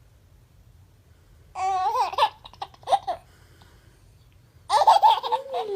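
A baby's high voice in two short bursts of vocal sounds, about one and a half seconds in and again near the end, the second ending on a falling note.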